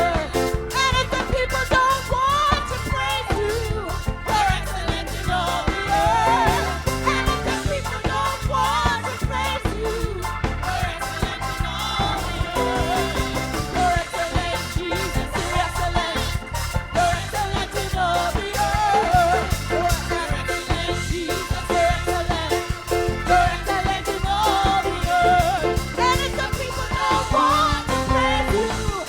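Church praise music: singing over instruments with a steady beat.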